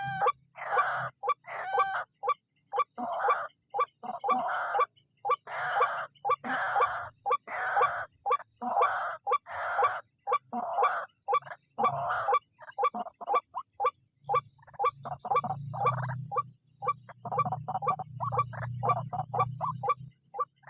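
White-breasted waterhen (ruak-ruak) giving its harsh, repeated 'ruak-ruak' calls, about two a second, growing shorter and quicker in the second half. A low hum runs under the calls for much of the later part.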